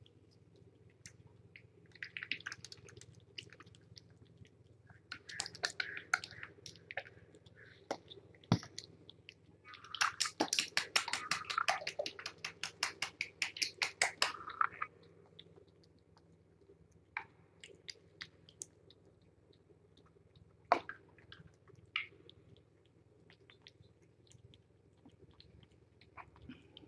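Kittens chewing wet cat food from a plate close to the microphone: short bouts of quick, wet chewing clicks, with a longer run of fast, even chewing about ten seconds in that lasts some four seconds.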